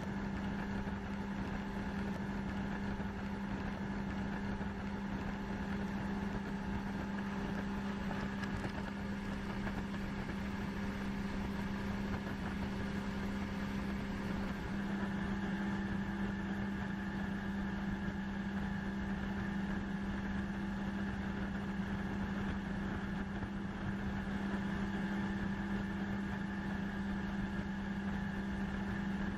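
Boat motor running at a steady speed while underway, one even hum with a constant pitch.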